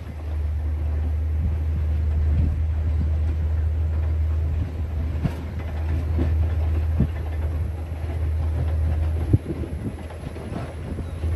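John Deere 670 GP motor grader's diesel engine running steadily under work, with scattered knocks and rattles and one sharp knock about nine seconds in.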